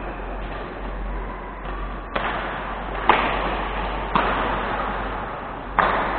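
Badminton rackets striking a shuttlecock in a rally: four sharp hits roughly a second apart, starting about two seconds in, each ringing briefly in a large sports hall over a steady background hubbub.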